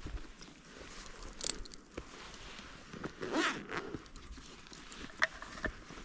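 Rummaging in an open backpack: fabric rustling with a couple of short rasping pulls about one and a half and three seconds in, and a few sharp clicks of straps and buckles.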